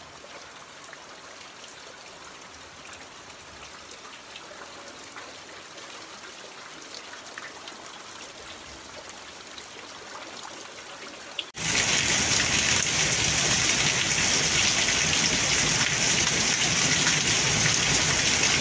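Steady rain falling on muddy ground and trees, fairly soft, with faint drop taps. About two-thirds of the way in it switches abruptly to much louder rain hissing on a paved road.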